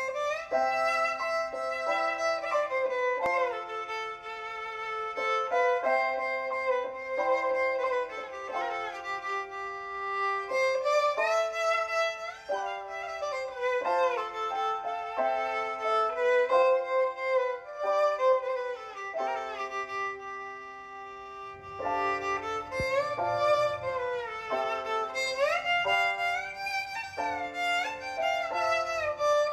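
Background music: a violin-led melody with sliding, vibrato notes over held lower notes.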